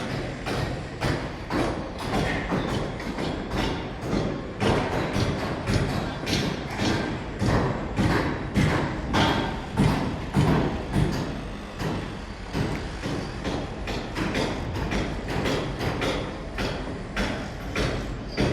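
Rapid, irregular thuds and knocks, several a second, over a constant low rumble.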